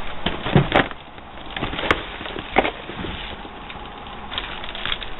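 Handling noises: several sharp clicks and knocks in the first few seconds, then lighter rustling, as a container of feeder crickets is handled and opened.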